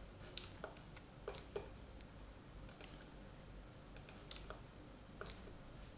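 Faint computer mouse clicks, about ten at irregular intervals, picking vertices while a polyline is traced on screen.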